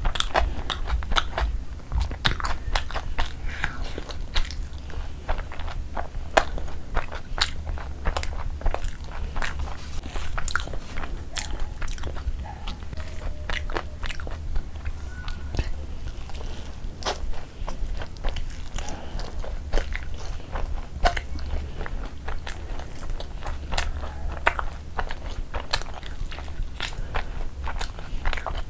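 Close-miked eating: a person biting and chewing saucy chicken and flatbread, a dense run of small wet clicks and crunches, over a steady low hum.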